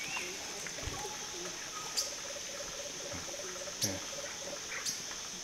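Forest ambience: a steady high insect hum, a few sharp clicks, and a bird giving a low, rapid series of short hollow notes, about six a second, in the second half.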